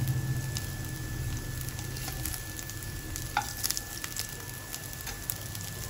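Maggi-and-potato patties sizzling as they shallow-fry in a little oil in a non-stick pan, with a spatula scraping and clicking against the pan as a patty is turned over. The clicks are sharpest about three and a half seconds in.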